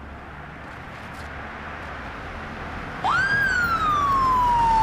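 Police car siren wailing. About three seconds in, one wail sweeps quickly up and then falls slowly in pitch, much louder than the growing rush of the approaching car beneath it.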